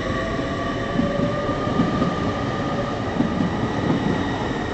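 TransPennine Express Class 802 bi-mode train pulling away from the platform: a steady low rumble with a faint steady whine above it.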